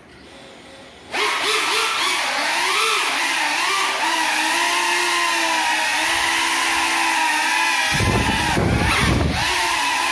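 FPV quadcopter's electric motors spinning up suddenly about a second in and running with a steady, slightly wavering multi-tone whine, the props broken. Between about eight and nine seconds a burst of deep rumble joins the whine.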